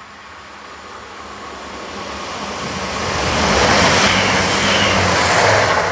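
Great Western Railway diesel multiple unit running through the station at speed. Its rush of wheel and engine noise, with a steady low engine drone and a high whine, builds to a peak about four seconds in and starts to fade near the end.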